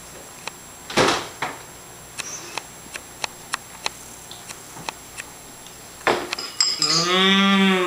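A metal spoon clinking against a cereal bowl in a string of light, sharp clicks, one louder than the rest about a second in. Near the end a person's voice makes a long, drawn-out sound.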